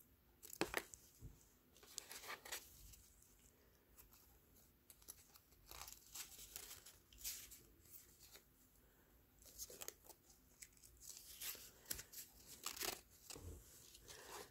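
Faint paper rustling and crinkling from a small handmade paper booklet being handled, opened and slipped into a paper pocket, in scattered short bursts that come more often near the end.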